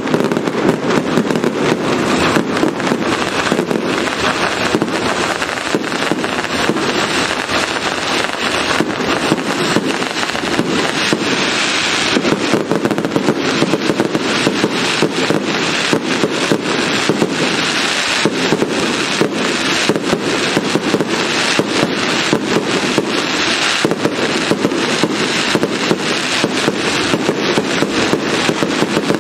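Aerial fireworks display: a dense, unbroken barrage of shell bursts and crackling, loud throughout.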